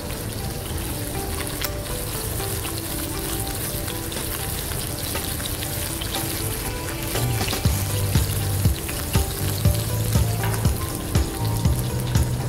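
Marinated bone-in mutton pieces shallow-frying in oil in a nonstick pan over a low gas flame, with a steady sizzle. Background music plays underneath, and a low beat comes in about halfway through.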